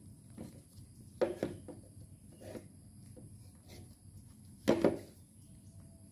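Scattered knocks and taps from hand work on a sandal being repaired: two quick knocks about a second in, a softer one about halfway, and the loudest double knock near the end.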